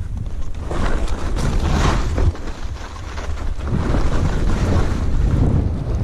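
Wind buffeting the microphone of a skier's point-of-view camera during a downhill run, over skis hissing and scraping through soft snow. The snow hiss swells twice, about a second in and again about four seconds in, as turns are made.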